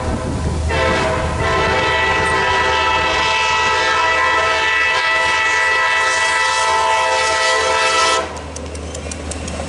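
CSX diesel freight locomotive's multi-chime air horn sounding one long blast of about seven seconds, a steady chord that cuts off sharply near the end. After it, the approaching train's quieter running noise with light clicking.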